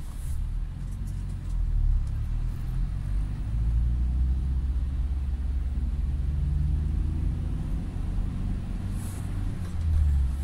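In-cabin sound of a UAZ Patriot SUV pulling away in traffic: the low rumble of its ZMZ Pro four-cylinder petrol engine with road noise, getting louder about two seconds in and again around four seconds as the car gathers speed.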